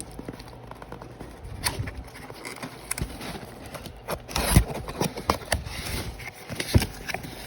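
Candle jars being handled in a cardboard box: irregular knocks and short scrapes as the jars are moved against each other and the box, the loudest knocks about halfway through and near the end.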